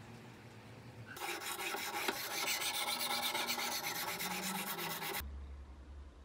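Whetstone of a guided-angle knife sharpening jig rubbed rapidly back and forth along a steel blade's edge: a steady rasping scrape that starts about a second in and stops abruptly about five seconds in.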